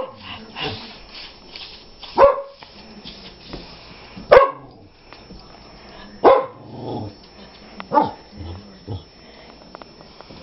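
A dog barking: about five sharp single barks, roughly two seconds apart.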